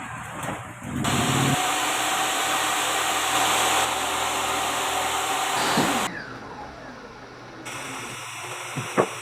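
Circular saw motor running with a steady whine, then winding down with a falling pitch about six seconds in. Two sharp knocks near the end.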